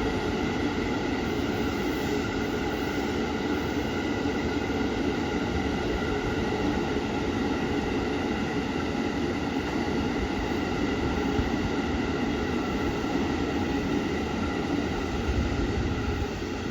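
A freight train's wagons rolling past on the rails, a continuous rumble with steady high ringing tones over it. It eases off slightly near the end.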